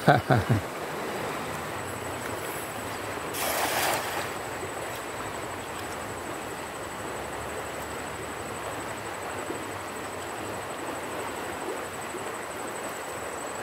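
Steady rush of flowing river water, with a short louder burst of noise a little over three seconds in.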